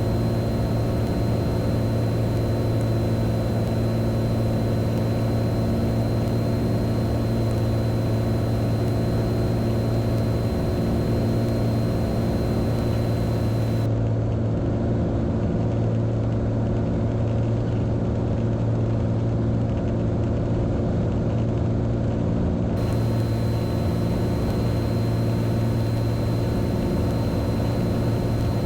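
Beechcraft Bonanza's piston engine and propeller droning steadily in the cabin on final approach. A thin, steady high whine runs over the drone and cuts out, together with the upper hiss, for several seconds in the middle.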